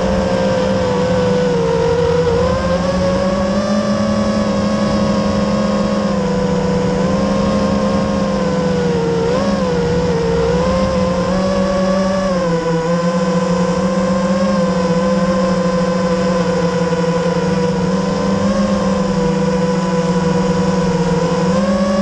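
FPV freestyle drone's brushless motors and propellers whining steadily, the pitch wavering up and down with the throttle, heard up close from the drone's own camera along with rushing air.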